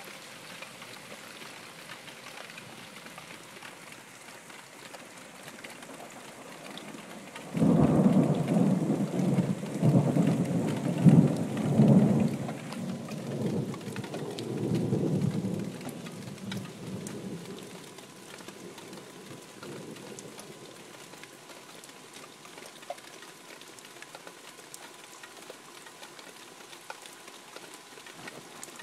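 Steady rain falling, broken about seven seconds in by a sudden loud clap of thunder that rolls on in rumbles for about ten seconds before dying away.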